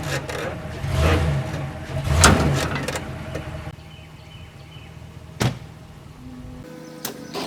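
A vehicle engine running, with a few knocks and a sharp clank about five seconds in, which fit a trailer being hitched. The rumble drops away near the end, where music comes in.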